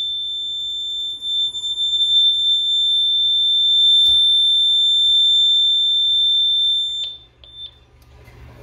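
Honeywell home alarm system's siren sounding a steady, high-pitched alarm tone after a burglary window zone is tripped in a test. It cuts off about seven seconds in and is followed by two short beeps.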